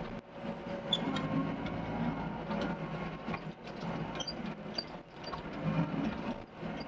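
Doosan DX55 excavator's diesel engine running with a steady hum, with irregular clanks and rattles from its tracks and work gear as it manoeuvres.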